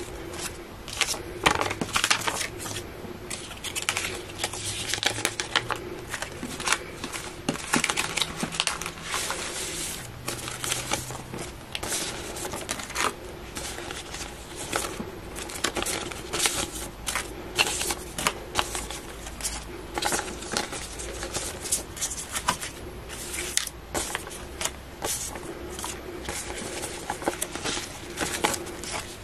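Bank of England polymer banknotes being handled and sorted by hand, with a continual, uneven run of crisp crackles and snaps as the plastic notes are flicked and laid down.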